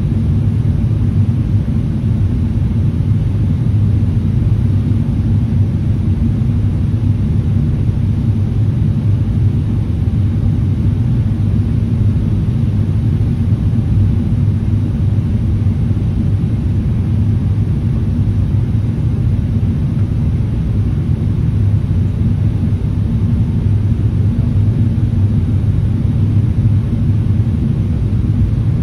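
Steady low rumble of jet airliner cabin noise, engines and rushing airflow heard from a window seat, during the descent toward landing.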